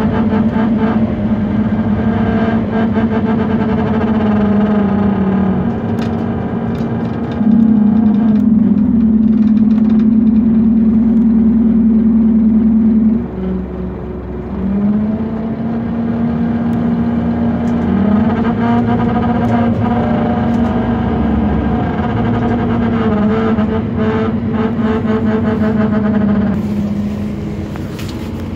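Scania K230UB city bus heard from inside while driving. Its Scania DC9 engine and ZF Ecomat automatic driveline give a loud steady droning whine that steps up and down in pitch several times, dropping away briefly about halfway and then rising again, with rattles over it. The bus is one its owner calls broken without knowing what is wrong.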